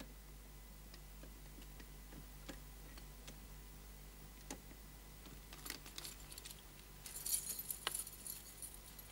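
Metal lock picks clicking faintly in a keyhole, a few separate clicks, then a bunch of picks jingling together in the hand from just past the middle, loudest near the end.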